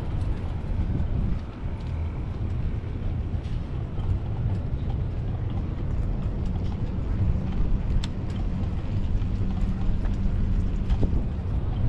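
Steady low rumble of outdoor noise picked up while riding a bicycle, with a few faint clicks.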